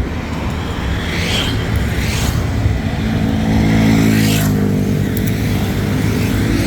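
A motor vehicle engine running in street traffic. A steady engine note swells and is loudest about four seconds in.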